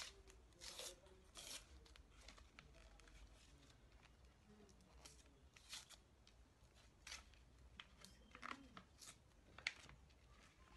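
Faint rustling and crinkling of plastic cling wrap and paper packaging being handled, in short scattered crackles.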